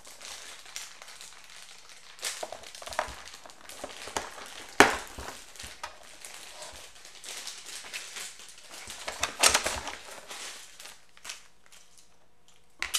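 Hard plastic toy parts of a Rock 'Em Sock 'Em Robots game being handled and fitted together: scattered clicks, knocks and rustling, with a sharp knock about five seconds in and a louder clatter around nine to ten seconds.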